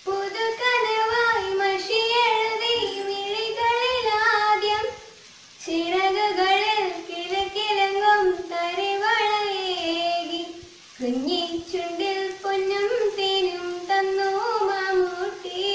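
A girl singing a song solo in three long phrases, pausing briefly for breath about five seconds in and again about eleven seconds in.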